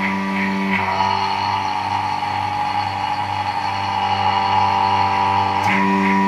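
Electric vacuum pump running with a steady hum while it feeds suction cups gripping papads. Its note shifts with a click about a second in and again near the end.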